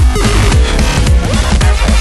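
Loud electronic background music with heavy bass and a driving beat.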